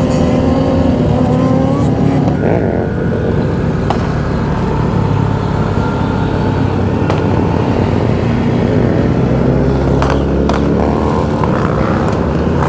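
Motorcycle engines running at road speed in a group ride, the rider's own small Honda Grom among them, with steady engine drone that rises and falls a little with the throttle and wind rush. A couple of sharp pops come near the end.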